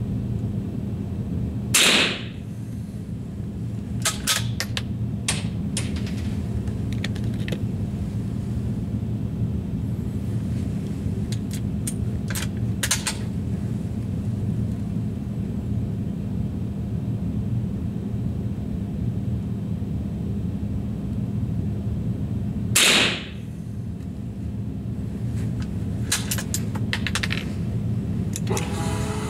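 Two rifle shots about 21 seconds apart, each a sharp report with a short ringing tail, with lighter clicks in between, over a steady low hum.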